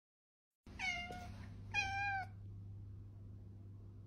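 Cat meowing twice: two short calls about a second apart, each falling in pitch at the end.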